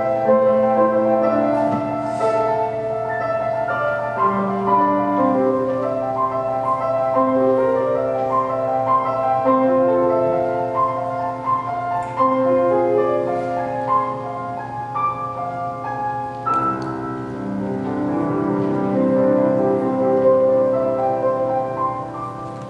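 Solo Bösendorfer grand piano played as a performance piece, with overlapping notes ringing on into one another, growing quieter near the end.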